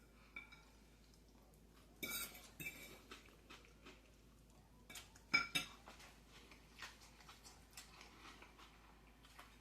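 A few short clinks and scrapes of cutlery against a dish, the loudest cluster about halfway through, with faint room tone between.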